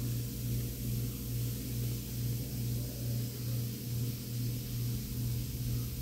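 A steady low mechanical hum that swells and fades about twice a second, over a faint hiss.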